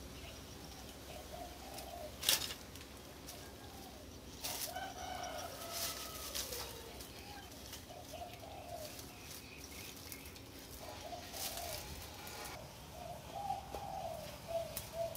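Birds calling in short warbling phrases that recur every second or two. There are scattered sharp snaps and rustles, the loudest a crack about two seconds in.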